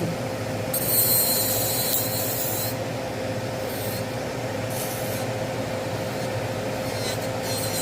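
Rechargeable electric nail drill grinding down gel on fingernails, a hissing rasp of the bit on the nail that comes and goes in stretches. Underneath runs the steady hum of an air conditioner and extractor fan.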